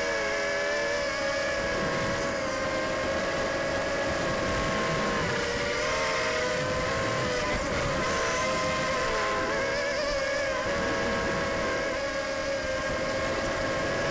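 Racing quadcopter's DYS 1806 2300KV brushless motors spinning 5030 propellers: a buzzing whine that rises and falls in pitch as the throttle changes, with wind rushing over the onboard microphone.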